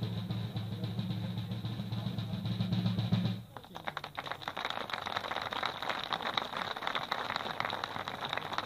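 A drum roll that cuts off suddenly about three and a half seconds in, building to the unveiling of a memorial stone, followed by a crowd applauding.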